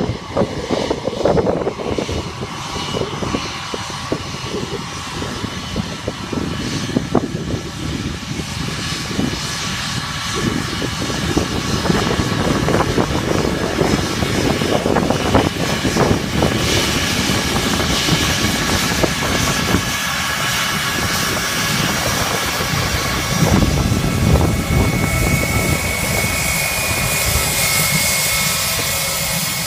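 Airbus A319 airliner's jet engines running at taxi power as it rolls past close by. The engine whine grows stronger and brighter in the second half as the aircraft nears, with a steady high whistle in the last few seconds.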